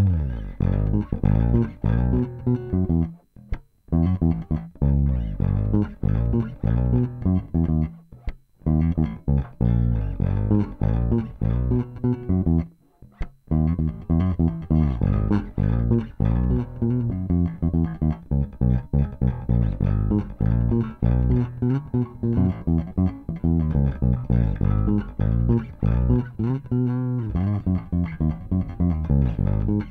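Electric Jazz Bass played solo, fingerstyle, its pickups wired straight to the jack and run through pots of different resistance (25k, 250k, 500k ohm) in turn for a tone comparison. Busy plucked lines with short breaks in the playing about 3, 8 and 13 seconds in.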